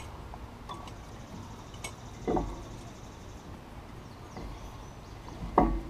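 Two dull metal clunks from a brake caliper and C-clamp being handled while the caliper pistons are pressed back, one a little after two seconds in and a louder one near the end, with a few light ticks between.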